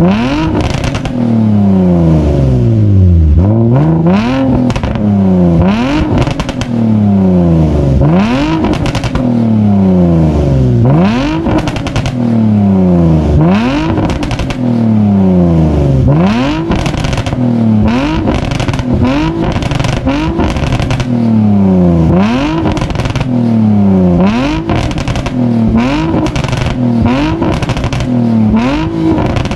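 Nissan 350Z's 3.5-litre V6 being revved over and over through its exhaust, about once every two seconds: each rev climbs quickly and falls back more slowly.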